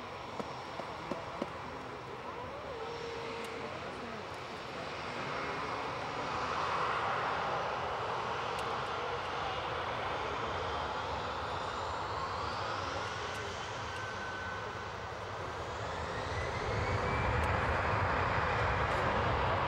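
Jet airliner engines running, a steady roar with a whine that slides up in pitch partway through, growing louder about a third of the way in and again near the end.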